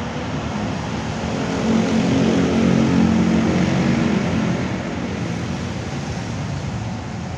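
A motor engine running, its hum swelling about two seconds in and easing off again past the middle.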